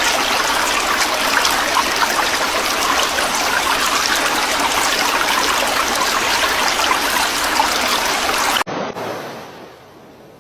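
Rushing water, a steady loud hiss like a stream or water pouring over a weir. It cuts off abruptly near the end, giving way to a quieter, fading wash.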